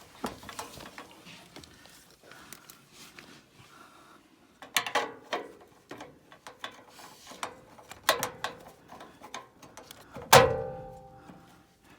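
Metal clicks and rattles from fitting a new blower-motor run capacitor into its mounting bracket inside a furnace cabinet. There are bursts of clatter about five and eight seconds in, and a loud metallic clank that rings briefly near the end.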